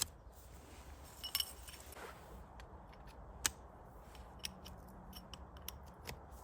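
A series of sharp, irregular clicks and snaps, loudest about three and a half seconds in, over a faint low hum.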